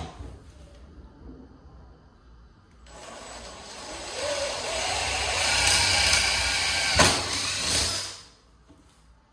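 Power drill with a 1/8-inch bit boring a hole through a wooden cabinet door for a knob screw. It starts about three seconds in, its motor pitch rises as it speeds up, and it stops shortly after eight seconds.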